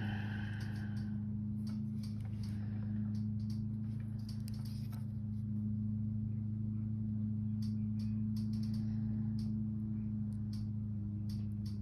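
Steady low electrical-sounding hum, with faint scattered small clicks and taps from handling beads, wire and tools.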